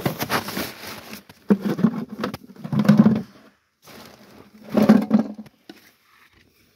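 Scraping and rustling as a plastic bucket is handled and set down on dirt, with plastic sheeting moved about. It comes in four bursts with short pauses between them.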